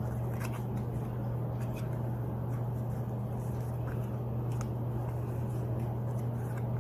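Paper strips being folded back and forth into an accordion, with scattered soft creasing crackles, over a steady low hum.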